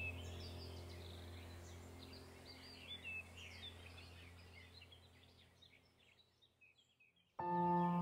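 Background ambient music: a low steady drone with bird chirping over it, fading out to near silence. Near the end a new ambient track starts abruptly with sustained bell-like tones.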